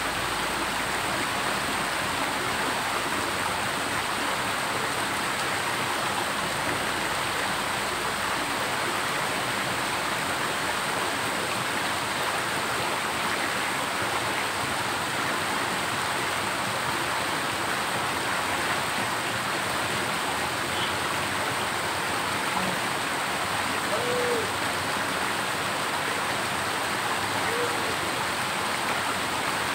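Steady rush of a small rocky stream cascading over boulders into a pool.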